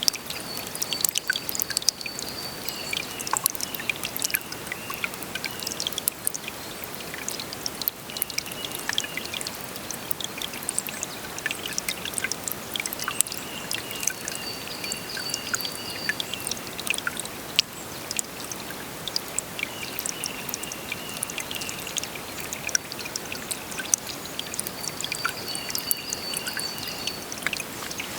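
Water flowing and trickling steadily, with many small splashes. A high, rapid trill comes and goes every few seconds in the background.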